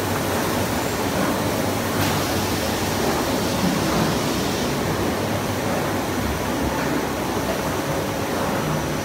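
Steady, even din of a snack food processing line running, including an octagonal seasoning drum turning with snack sticks tumbling inside.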